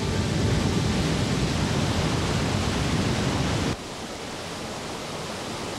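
Rushing whitewater of a river rapid, a steady noise that drops suddenly to a quieter, thinner rush about four seconds in.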